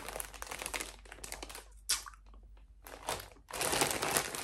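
Clear plastic wrapping crinkling as it is handled and pulled at: a stretch of rustling, a near-quiet pause with a couple of short crinkles in the middle, then steady crinkling again near the end.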